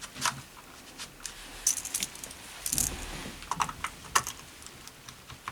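A computer keyboard being handled and connected: scattered clicks and short rattles of its keys, with some rustling in between.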